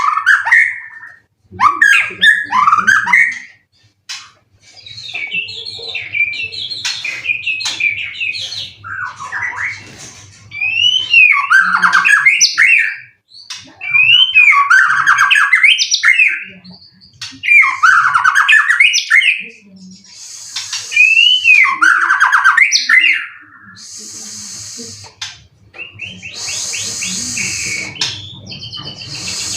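White-rumped shama (murai batu) singing loud, varied phrases of whistles and sweeping notes, a new phrase every two to three seconds, with harsher, noisier notes near the end.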